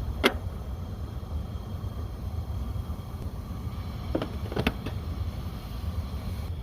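Steady low rumble of wind, with a sharp clink just after the start and a quick cluster of clinks about four and a half seconds in.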